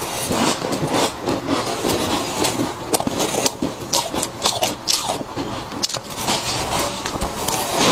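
A person chewing mouthfuls of freezer frost: dense, irregular crunching and crackling that goes on without a break.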